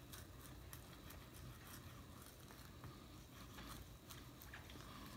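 Faint, irregular little ticks and scrapes of a knife cutting along a raw flounder's skin and flesh on a wooden cutting board.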